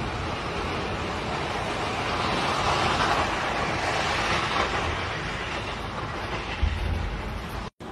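Continuous rumble following an airstrike on a multi-storey building, swelling in the middle, with one low thump near the end before the sound briefly cuts out.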